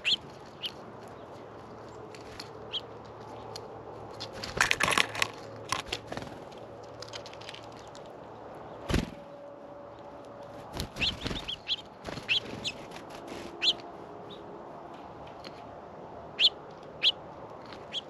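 Small songbirds at a feeder close to the microphone: scattered knocks and clicks of birds landing and pecking at the seed, a flurry of fluttering and clatter about five seconds in, and a low thump about nine seconds in. Short high chip notes come between them.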